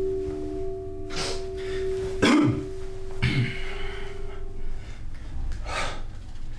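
A man breathing hard in four short, sharp breaths, the loudest about a third of the way in, as he drops to the floor and starts push-ups. A steady sustained tone from the film's score sounds beneath them and stops about three-quarters of the way through.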